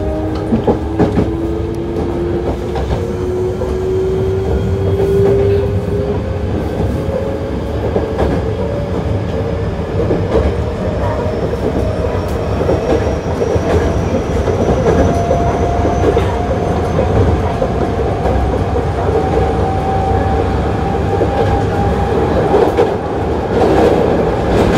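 Hankyu 8000 series electric train running, its Toshiba GTO inverter and traction-motor whine slowly rising in pitch as the train gains speed. Under the whine are the rumble of the wheels on the rails and scattered clicks of rail joints.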